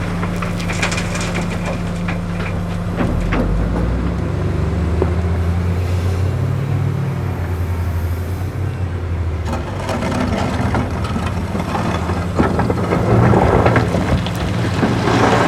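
Komatsu PC450LC-7 excavator's diesel engine working steadily, its note swelling and shifting as the hydraulics take load. Near the end, gravel rattles and crunches as it is loaded into a dump truck.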